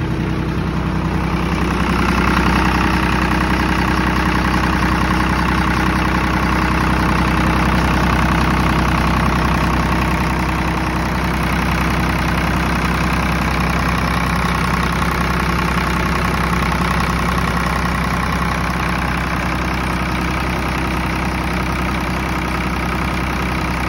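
Kirloskar 3R-1040 three-cylinder diesel engine of a 30 kVA generator set running steadily after a complete overhaul. About two seconds in it grows louder and brighter, then holds an even, continuous run.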